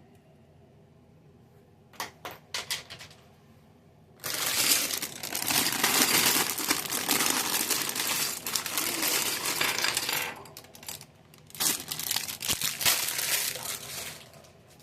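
Plastic LEGO parts bag crinkling and small plastic bricks clattering: a few clicks, then about six seconds of dense rattling and rustling, and another shorter burst near the end.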